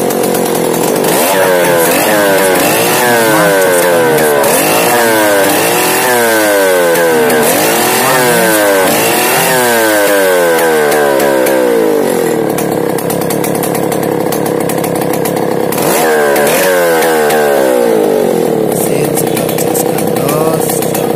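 Stihl 070 chainsaw's large single-cylinder two-stroke engine, on a test run with a freshly adjusted carburetor. The throttle is blipped over and over, so the engine revs up and drops back about a dozen times for roughly ten seconds. It then settles to a steady idle, with one more rev-up about two-thirds of the way through.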